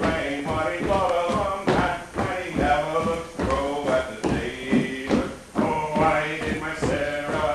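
Live folk tune played for a Molly dance reel, with irregular heavy thumps of the dancers' feet on the floor.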